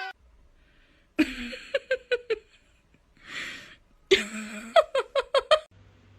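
Two bursts of breathy laughter, each a run of quick short pulses, with a breath in between.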